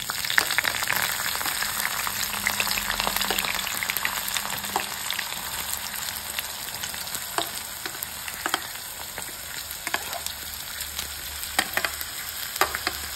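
Ginger and green chillies sizzling in hot coconut oil in a pan. The sizzle starts loud as they go in and eases a little, while a spatula stirs them with scattered scrapes and taps against the pan.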